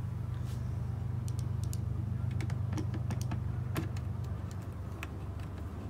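Hand tool tightening the metal clamp on a snorkel head: a string of small, irregular clicks and ticks, over a steady low hum.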